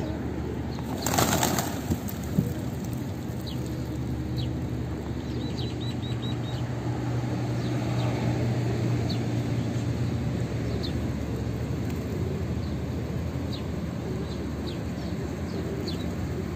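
A flock of feral pigeons, with a loud burst of wing flapping about a second in as birds lift off. Then steady background noise with scattered short, high bird chirps.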